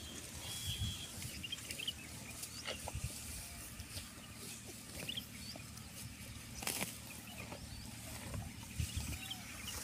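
Water buffalo calf grazing: irregular tearing and crunching of dry grass as it crops and chews, with one sharper crack about two-thirds of the way through.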